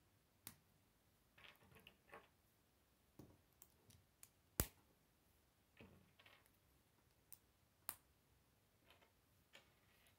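Plastic K'nex rods and connectors being handled and snapped together: a handful of quiet, sharp clicks, the loudest about four and a half seconds in, between softer rattling and rubbing of the plastic pieces.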